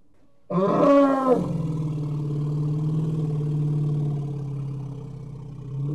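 Elephant calling: a short, loud, harsh call with wavering pitch about half a second in, running straight into a long, steady, low growl that lasts about four seconds and slowly fades, and a second short call starting right at the end.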